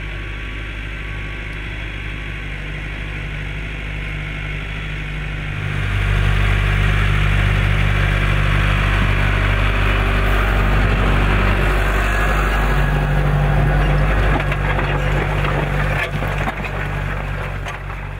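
Claas Arion 550 tractor's four-cylinder diesel engine running steadily under load while pulling a plough, with soil and stubble crunching under the tyres. It gets clearly louder about six seconds in and eases off near the end.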